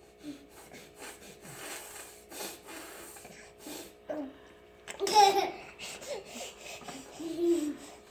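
A small child laughing in breathy giggles, with a loud burst of laughter about five seconds in and another shorter one near the end.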